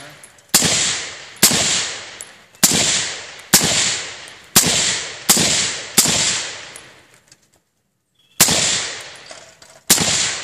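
Daniel Defense MK18 5.56 rifle, suppressed with a SilencerCo Saker, fired in single shots about one a second. Seven shots come in a row, then after a pause of about two seconds two more follow; each crack rings off for about a second.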